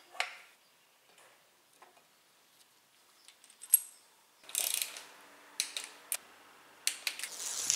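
Hand work on a bare car engine: sparse small metallic clicks and taps at first, then denser, louder ratchet-like clicking and rattling of metal parts and tools in the second half.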